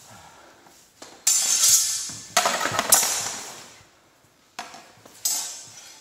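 Steel sparring swords and bucklers clashing: four sharp metallic strikes, each ringing out and fading over about a second.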